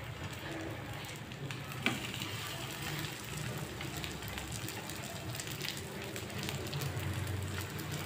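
Crepe parcels sizzling gently in a lightly oiled nonstick frying pan, with scattered small crackles and one sharper click about two seconds in, over a low hum.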